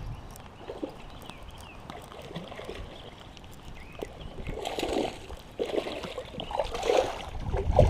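Creek water splashing as a hooked smallmouth bass is played and landed in the shallows, with louder, irregular splashes about halfway through and again near the end.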